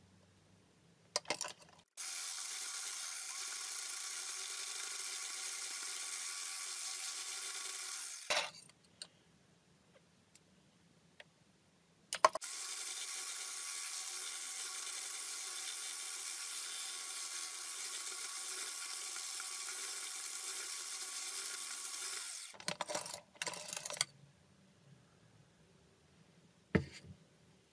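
Electric mixer with a wire whisk attachment whipping dalgona coffee into foam in a glass: two steady motor runs, the first about six seconds long and the second about ten, with a few short knocks before, between and after them.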